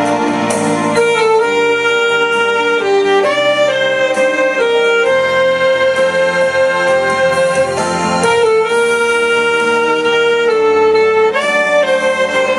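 Saxophone playing a slow melody of long held notes over a sustained accompaniment.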